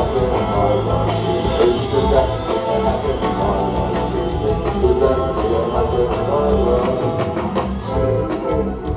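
Live band music at a concert: guitar and bass over drums, loud and continuous, with no clear lyrics.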